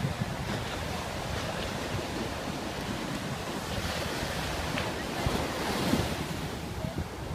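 Ocean surf breaking and washing up a sandy beach in a steady hiss that swells about halfway through as a wave spreads up the shore, with wind buffeting the microphone underneath.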